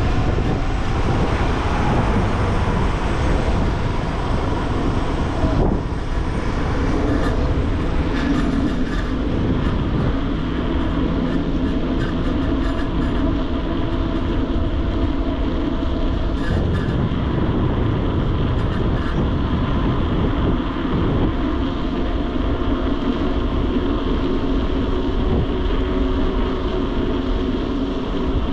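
Steady rumble of a mountain bike rolling along at speed, tyre noise and rushing wind without a break, with a few light ticks about 8, 17 and 19 seconds in.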